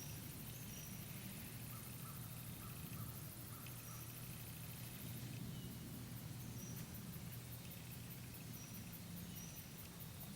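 Faint outdoor ambience: a few short, high bird chirps over a low steady hum, with a fast, faint high ticking starting about halfway through.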